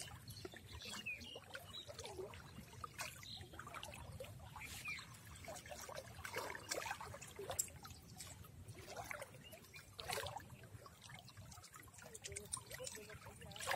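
Water trickling and dripping off a wet cast net as it is lifted and gathered by hand from waist-deep water, with irregular small splashes.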